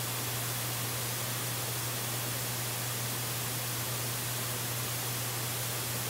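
Steady hiss with a constant low hum underneath, the live nest camera's open-air audio with no distinct events.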